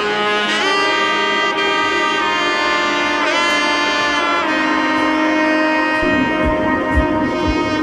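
Background music: long held melodic notes with a couple of sliding pitch bends, joined about six seconds in by a steady low beat.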